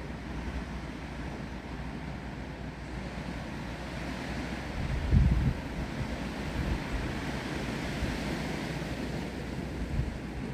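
Wind gusting through trees with steady rain, and wind buffeting the microphone, with a strong gust about halfway through.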